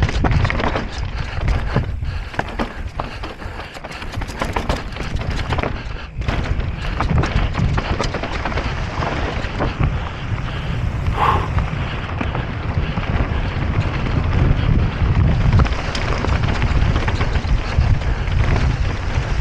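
Wind buffeting the microphone over the clatter of an electric mountain bike going fast down a rough trail, with many sharp knocks and rattles from the bike and tyres on rocks.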